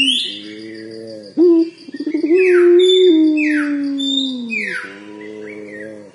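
Young puter pelung (a Barbary dove breed) cooing. A short coo is followed by a long drawn-out coo that opens with a quick trill and then slowly falls in pitch, and a softer falling coo comes near the end. This is a young bird still learning the long call. Other small birds chirp over it in quick falling sweeps.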